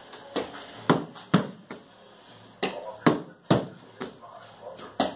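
Hands slapping down on a plastic aerobic step and rubber floor mat: a string of uneven thumps and taps, roughly two a second.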